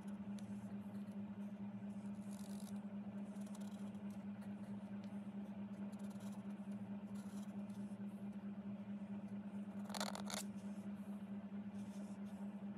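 Flat-tipped bamboo calligraphy pen scraping across card as it lays down thick paint strokes: faint, short scratches, with one louder scrape about ten seconds in. A steady low hum runs underneath.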